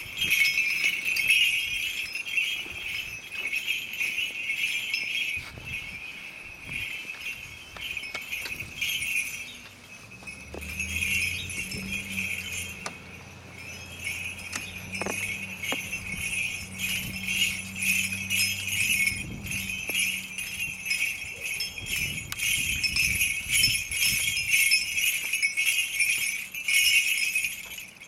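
Small bells on a swinging Orthodox censer jingling continuously as the censer is swung during censing. A low steady hum joins in the middle for about ten seconds.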